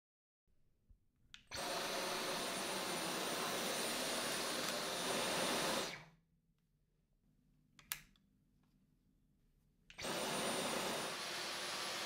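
Dyson V12 Detect Slim cordless stick vacuum switched on with a click about a second and a half in, its motor and airflow running steadily with a thin high whine, then cutting off and winding down. After a few quiet seconds and a single click, it starts again and runs on.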